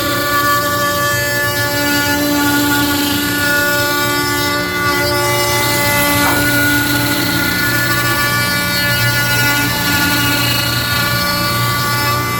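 Router motor on a Onefinity Foreman CNC running steadily while it cuts oak: a loud, continuous whine of several held tones over the noise of the cut, with some tones dropping out and changing now and then.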